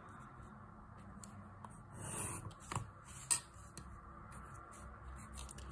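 Pencil drawn along a ruler across notebook paper, a short scratchy stroke, among a few sharp clicks and taps of the ruler and pencil being handled.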